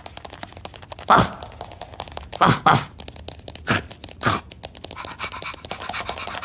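Cartoon sound effects for a dog-like ladybird scuttling off and fetching a slipper: a fast clicky patter of tiny legs, broken by five short muffled vocal sounds, the patter growing denser and scratchier near the end.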